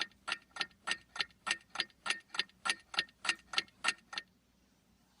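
Clock ticking steadily, about three ticks a second, stopping about four seconds in.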